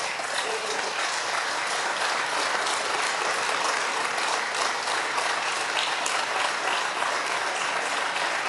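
Applause from members of parliament: many people clapping steadily in a large chamber.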